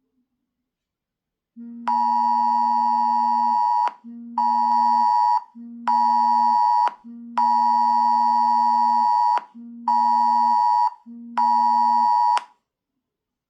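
Smartphone sounding the UK Emergency Alerts test tone: a loud, steady two-pitch alarm in six blasts, long-short-short and then long-short-short again, with the phone's vibration buzzing under each blast. It is the attention signal of the national emergency alert system test.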